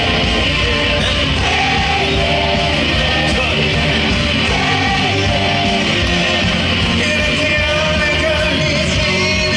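Live rock song: a male lead vocalist singing a sustained melody over loud rock band accompaniment with a steady beat.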